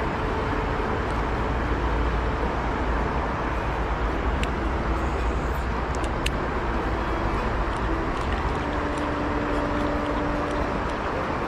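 Steady rushing noise of a fast-flowing, swollen river, with a low rumble and a few faint clicks; a faint steady hum comes in near the end.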